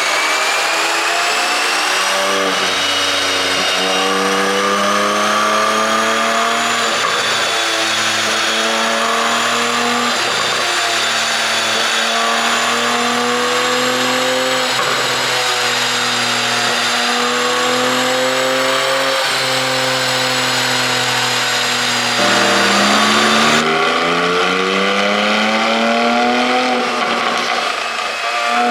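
Porsche 718 Boxster GTS 4.0's naturally aspirated flat-six engine running under way, with revs holding roughly steady and wandering slowly. Near the end the revs drop and then climb steadily as it accelerates.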